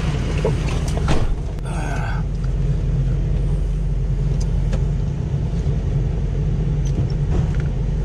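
Ford pickup truck engine idling steadily, heard from inside the cab, with a sharp click about a second in.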